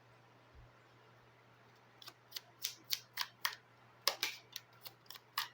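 A Lenormand (cigano) card deck being shuffled by hand: a quick, irregular run of sharp snapping clicks that starts about two seconds in.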